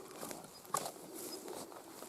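Faint short bird chirps in the woods, with one sharp click a little under a second in.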